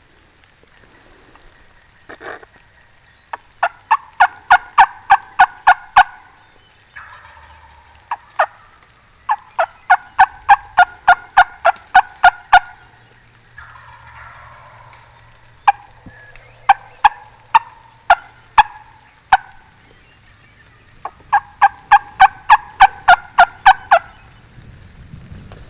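Turkey calls: four loud runs of rapid, sharp notes, about four to five a second, each run lasting two to three seconds, with softer calling between them.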